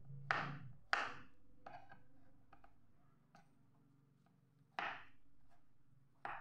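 Kitchen knife chopping tempeh into cubes, the blade knocking sharply on a plastic cutting board. There are two loud chops in the first second, a few fainter taps, a short pause, then two more chops near the end.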